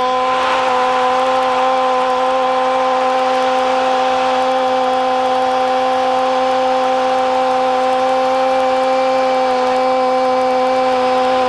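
A football commentator's drawn-out Spanish goal cry, "¡Gol!" held as one unbroken shouted note, over the noise of a stadium crowd.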